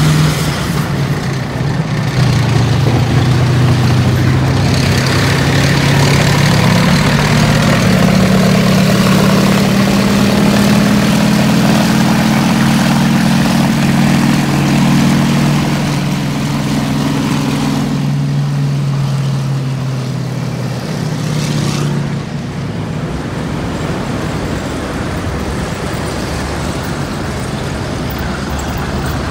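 M4 Sherman tank passing under way, its engine running loud with a deep hum that rises and falls in pitch. The engine sound fades about two-thirds of the way through, leaving a quieter rumble.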